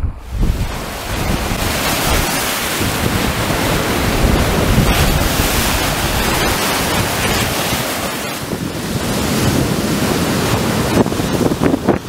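Sea surf breaking and washing up a sandy beach, a continuous rushing wash that swells and eases with the waves, with wind buffeting the microphone.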